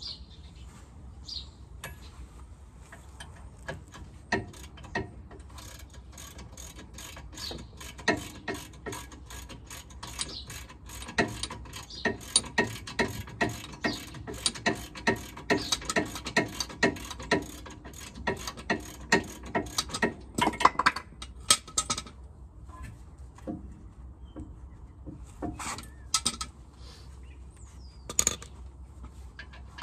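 Hand ratchet clicking rapidly as it winds out the front Brembo brake caliper's 21 mm double-spline bolts. The run of clicks stops about two thirds of the way through and is followed by a few single metal knocks.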